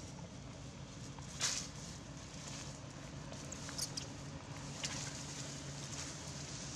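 Faint scattered crackles and rustles of dry leaves as macaques move about on leaf-strewn ground, over a steady low hum, with a few brief high-pitched sounds, one about a second and a half in and another near four seconds.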